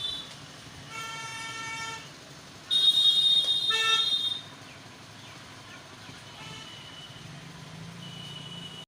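Vehicle horns honking twice: a one-second honk about a second in, then a louder honk of about a second and a half near three seconds in, over low street noise.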